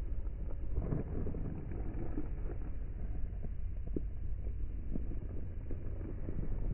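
Wind buffeting the microphone: a steady low rumble with irregular soft thumps.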